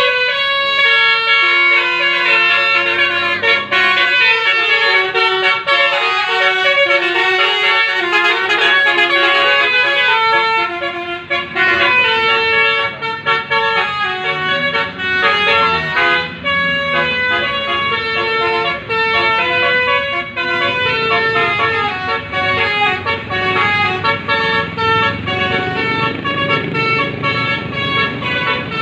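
Bus telolet horn playing a quick melody: several horn tones sounding together and stepping from note to note without a break, with a vehicle rumble underneath that grows stronger in the second half.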